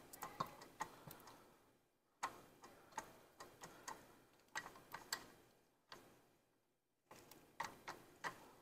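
Faint, irregular clicks and scrapes of a spatula against a stainless steel KitchenAid stand-mixer bowl as the sides and bottom are scraped down, with two short pauses.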